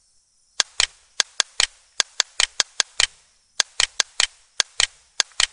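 Computer mouse buttons clicking: a run of sharp clicks, many in quick pairs about a fifth of a second apart, the double-clicks of opening folder after folder in a file dialog.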